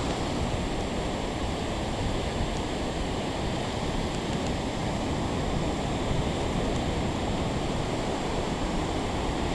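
Ocean surf washing steadily onto a sandy beach, with wind.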